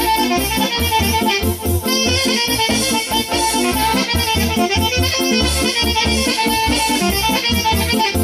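Live Romanian folk dance band playing an instrumental passage between sung verses: a saxophone plays a fast melody over a steady bass beat.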